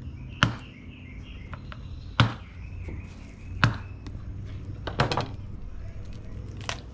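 Serrated knife chopping through a tilefish rack's backbone on a cutting table: five sharp cracks about one and a half seconds apart.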